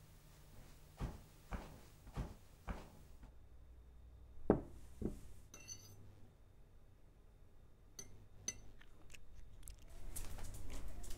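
Metal spoon clinking against a ceramic bowl while eating: a series of separate taps, the two loudest about halfway through.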